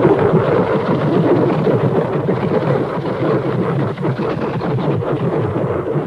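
Monster-movie sound effect of a sustained, crackling rumble like a prolonged explosion or blast. It starts abruptly and holds steady.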